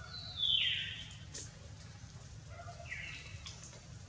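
Animal calls: a high call sweeping downward in pitch just after the start, the loudest sound, then a fainter, shorter one about three seconds in, over a steady low rumble.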